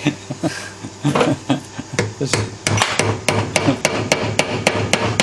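Hammer tapping on a stuck VW Superbug engine part to break it free of the gasket holding it: a few scattered knocks, then from about two seconds in a steady run of sharp blows, about four a second.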